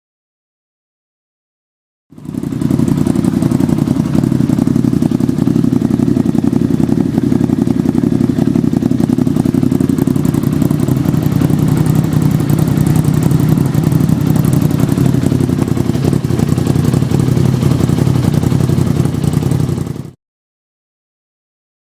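Arctic Cat Wildcat 1000's V-twin engine running through an HMF aftermarket exhaust, a deep, steady exhaust note that starts about two seconds in and cuts off shortly before the end.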